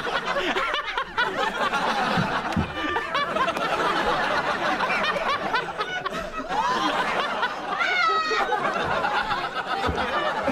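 A group of people laughing together, with a high-pitched laugh standing out about eight seconds in.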